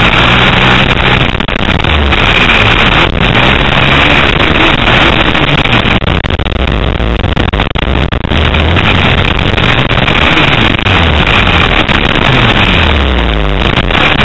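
Motocross bike engine, recorded on board, running loud and repeatedly rising and falling in pitch as the throttle is opened and closed over the track's jumps and turns.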